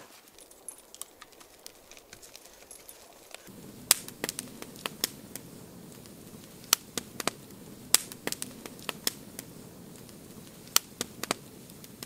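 Faint small snaps and ticks as the kindling is lit, then, from about three and a half seconds in, a campfire of split kindling and twigs burning with a steady hiss and sharp, irregular crackles and pops.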